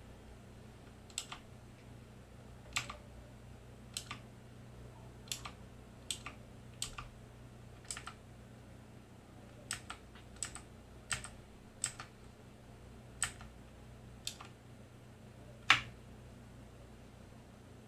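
Keys of a Motospeed CK888 mechanical keyboard pressed one at a time: sharp separate clicks at an uneven pace of about one a second, one louder stroke near the end.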